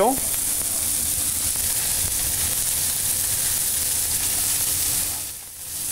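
Pork tenderloin medallions searing in a frying pan, sizzling steadily. The sizzle drops away briefly near the end.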